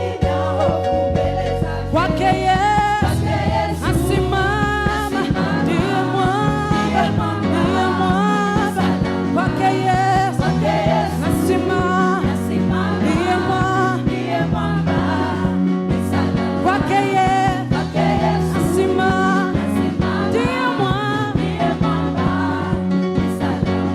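Gospel worship music played by a band, with voices singing a wavering melody over steady bass notes and a regular drum beat.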